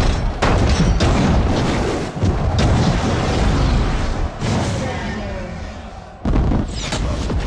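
Action-film battle sound mix: a dense run of booms and impacts, with a sudden loud hit about six seconds in.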